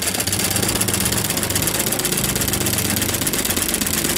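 Straight-stitch sewing machine running steadily at speed, its needle stitching rapidly as the fabric is guided by hand for freehand embroidery: a fast, even mechanical chatter over the hum of the motor.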